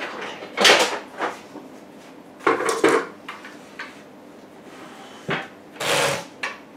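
Handling clatter of a food processor's stainless-steel bowl and its blade and a kitchen scale being moved about on a table: a string of separate knocks and bumps, the loudest about a second in and again near the end.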